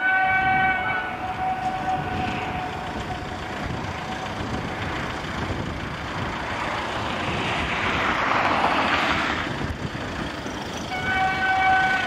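Horn of a CFR Class 65 ('Jimmy') diesel locomotive sounding a long single-note blast that fades out over a few seconds with an echo from the surrounding mountains, then a second blast near the end. In between, a rushing noise swells as the train approaches.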